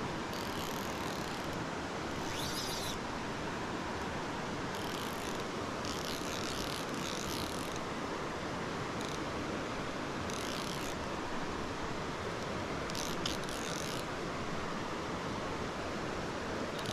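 Steady rushing of a mountain stream, with a fly reel's click-pawl ratcheting in short bursts about seven times as line moves on the spool.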